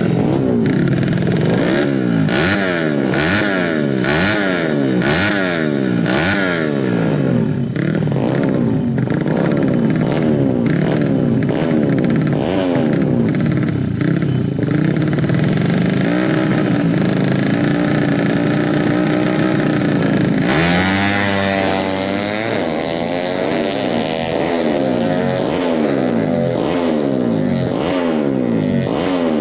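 Honda Supra X four-stroke single-cylinder engine, bored up from 100 cc to 130 cc, revved hard in quick repeated blips on the start line, then held at a steadier pitch. About two-thirds of the way through it runs at full throttle, its pitch climbing in long sweeps again and again as the bike accelerates.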